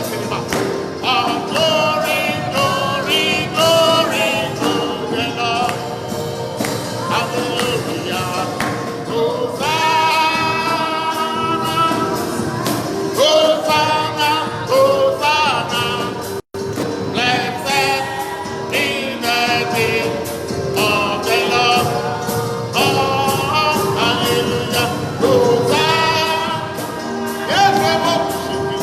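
Gospel worship music: voices singing a slow praise song over a steady held instrumental note. The sound drops out for an instant about halfway through.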